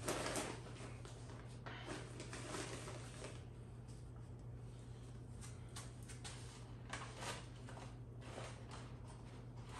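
Garden soil being scooped out of its plastic bag with a metal cup and poured into a plastic pot tray: a few soft rustling, scraping bursts from the bag and the soil, over a steady low hum.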